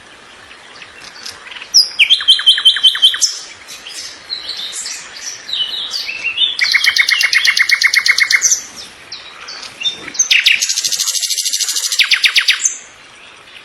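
A songbird singing: three long trilled phrases of rapidly repeated notes, about two seconds in, about seven seconds in and just after ten seconds in, with short high chirps between them.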